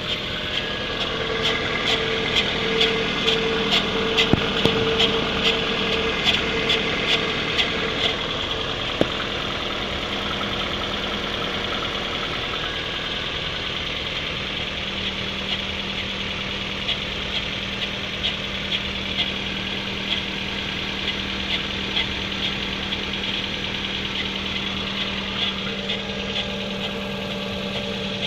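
Kia Rio engine idling, with a rhythmic zipping noise about twice a second over the first eight seconds or so: the extraneous noise that comes from the right side. About halfway through a steady low hum joins the idle.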